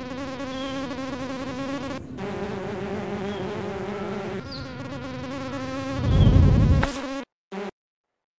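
Cartoon mosquitoes talking in buzzes: a steady mosquito-like whine whose pitch wavers like speech, passing between two buzzing voices. About six seconds in a loud low thump sounds, and then the sound cuts out for the last second.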